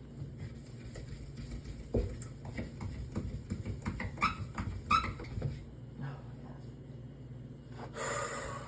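Scrubbing and wiping the inside of a refrigerator to remove black stains, with irregular rubbing strokes and knocks against the plastic over a steady low hum. A brief rushing noise comes near the end.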